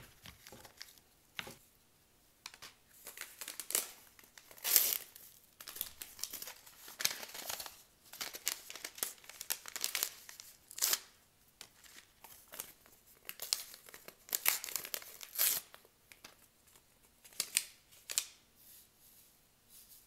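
Small paper seed packet crinkling and rustling in the fingers in short, irregular bursts.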